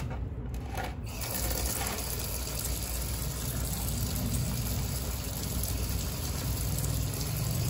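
Water running steadily from an outdoor wall tap and splashing on the concrete. The flow starts about a second in.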